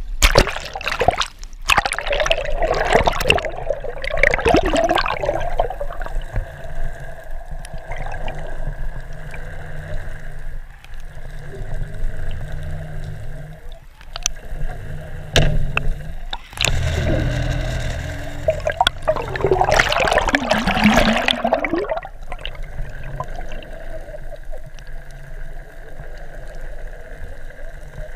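Underwater sound picked up by a submerged camera: a steady rush of water with gurgling, bubbling swells, loudest in the first few seconds and again about twenty seconds in.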